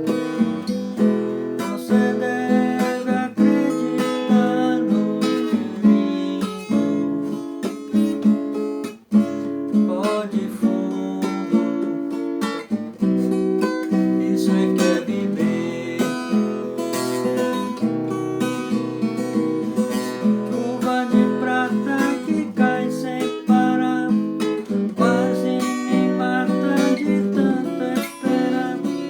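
Acoustic guitar playing steadily, strumming and picking chords in a continuous passage of music.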